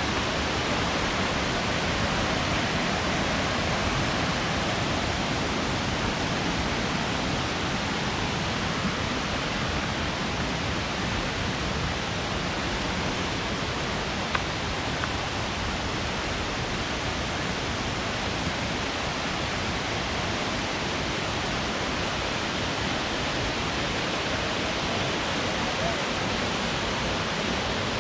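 Waterfall: the steady, unbroken rush of falling water, with one brief click about halfway through.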